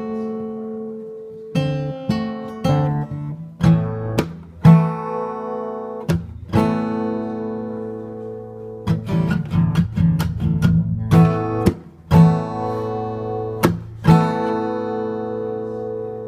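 Acoustic guitar played solo, chords strummed sharply and left to ring between strokes.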